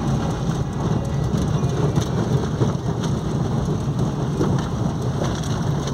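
Inside a car cabin while driving over a wet cobblestone street in the rain: a steady low rumble of the tyres on the stones, with rain on the car.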